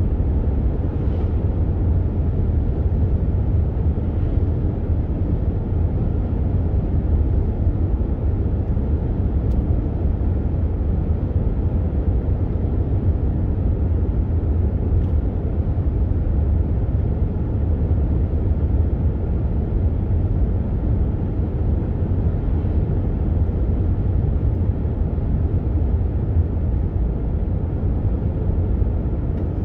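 Steady low road and tyre rumble of a car driving at speed, heard inside the cabin.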